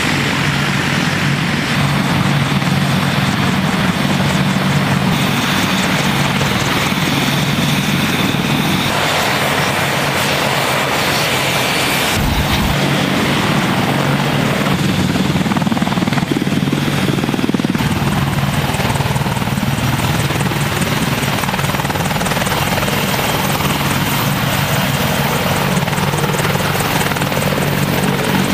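AH-64 Apache attack helicopter's rotor and twin turboshaft engines running with a steady drone. The sound shifts abruptly a few times.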